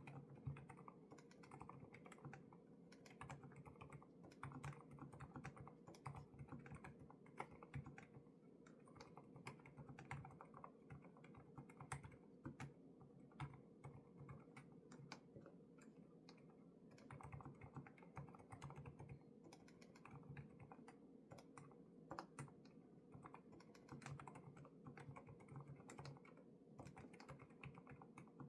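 Quiet, continuous typing on a Lofree Flow2 low-profile mechanical keyboard with Kailh Void switches: a quick, uneven stream of keystroke clacks with brief lulls.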